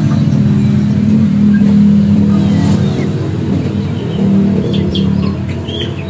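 An engine running steadily with a low, even hum. Small birds chirp a few times near the end.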